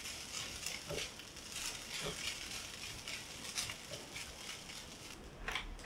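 Fried rice sizzling softly in a nonstick wok while a spatula stirs and scrapes it in irregular strokes.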